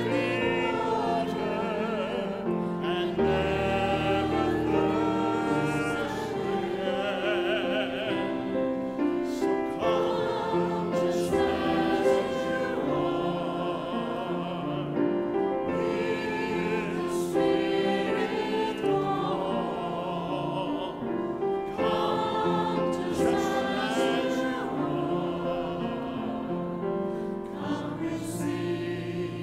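Church choir singing a slow invitation hymn, long held notes over a low sustained accompaniment.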